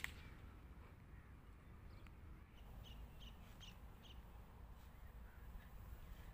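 Near silence with a faint low background rumble, and a quick run of about five short, high bird calls around the middle.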